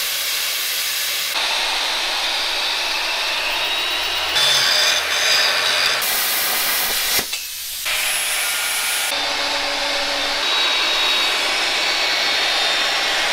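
Plasma cutter cutting steel clamped in a vise: a loud, steady hiss with a harsh edge. Its tone shifts abruptly several times, with a short break a little after halfway.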